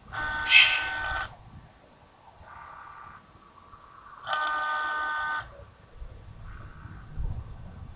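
A steady, horn-like chord honks twice, each about a second long and about four seconds apart, with a fainter, shorter one between them.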